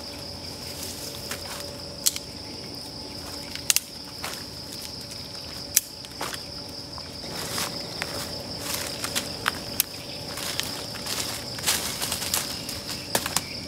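Night insects trilling steadily, with scattered sharp snaps, cracks and rustles of dry sticks being picked up and broken and feet moving through undergrowth and leaf litter while firewood is gathered.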